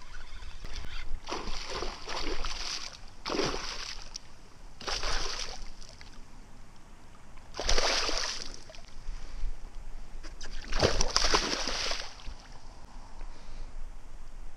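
A hooked pike thrashing at the water's surface beside a small boat, making a series of separate splashes, the biggest about eight seconds in and about eleven seconds in.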